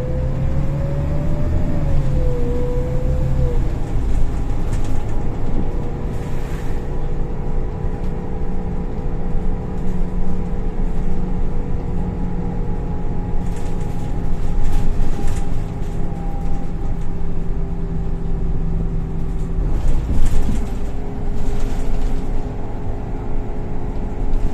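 Golden Dragon XML6125CC bus heard from inside while driving: the engine and Voith automatic drivetrain run with a steady drone and whine. A whine rises and then drops over the first few seconds, and short rattles come several times.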